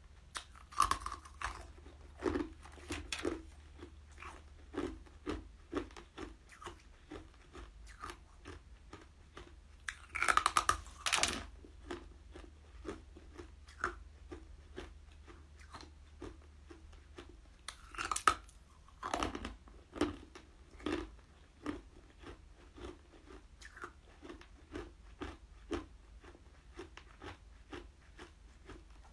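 Coloured ice pieces bitten and crunched between the teeth, close to the microphone: a few loud crunching bites, with softer chewing crunches in between.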